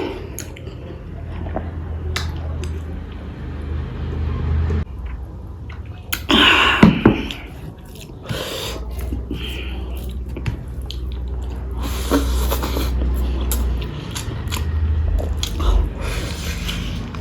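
A person chewing food close to the microphone, with wet mouth clicks and smacks. About six and a half seconds in comes one louder burst of mouth noise lasting under a second.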